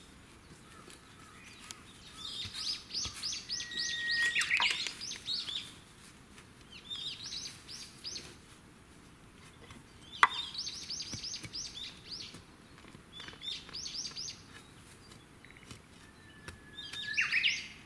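A songbird singing in repeated phrases, each a rapid run of falling notes, two of them opening with one long held whistle. A single sharp knock about ten seconds in, as a long-handled digging tool strikes the ground while a bamboo shoot is being dug.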